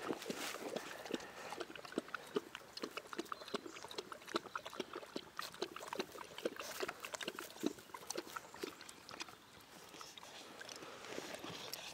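A 30-day-old Cane Corso puppy sniffing and snuffling at the grass: many quick, irregular little sniffs, mixed with the rustle of dry grass.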